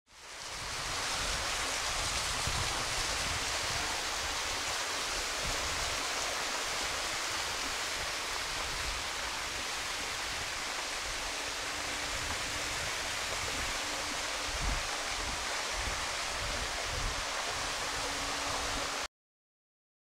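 Steady rushing water, fading in over the first second and cutting off suddenly near the end.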